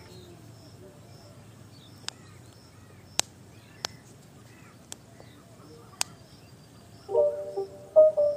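Quiet background with faint bird chirps and five sharp clicks spread through it. A plucked-string tune starts near the end.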